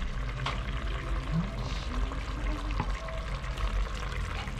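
Coconut milk sauce simmering around fish in a frying pan, bubbling steadily, with a couple of light clicks.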